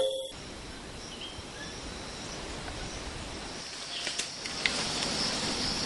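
Forest ambience with insects buzzing in a steady high band that grows louder from about four seconds in, and a few short chirps around the same point.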